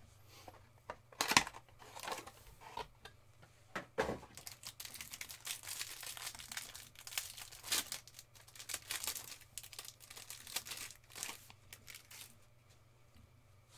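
Plastic wrapping on a trading card box and pack being torn open and crinkled by hand. A couple of sharp rips come in the first four seconds, then steady crinkling that dies down about twelve seconds in.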